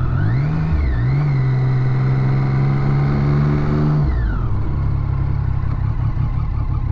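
Motorcycle engine heard from the rider's seat: it revs up and shifts up a gear about a second in, then holds steady revs. About four seconds in the throttle is closed and the revs drop to a lower steady note as the bike slows. Wind rushes over the microphone throughout.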